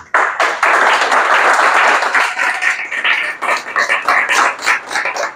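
Audience applauding, starting suddenly and dense at first, thinning into more separate claps over the last couple of seconds.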